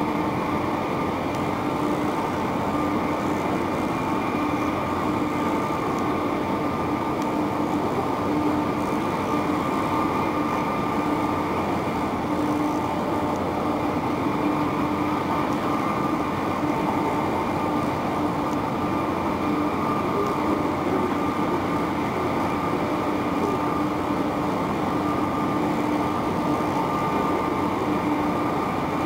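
Passenger ferry's engines and machinery running steadily as the ship comes in to berth: an even, loud drone with a steady hum in it.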